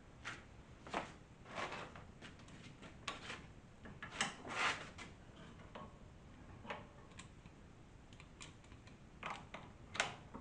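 Spanners clicking and scraping against the top cap of a motorcycle front fork leg as the cap is tightened: irregular metal clicks with a few longer rasps.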